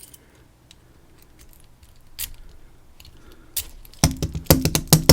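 Metal clicking from a dimple lock being handled: a few faint clicks, then from about four seconds in a quick run of sharp metallic rattles and clicks with a short ring. The rattle is taken to be loose pins jumbling around inside the lock.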